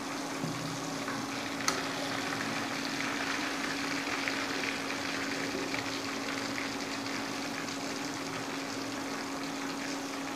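Chicken 65 pieces deep-frying in hot oil in a steel kadai, a steady sizzle and bubbling as a slotted steel ladle turns them. There is one sharp clink of the ladle against the pan about two seconds in, and a steady hum underneath.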